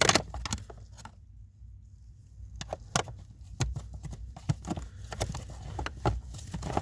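Scattered clicks and knocks of car interior parts being handled and fitted back in place, with a short quieter pause about a second in.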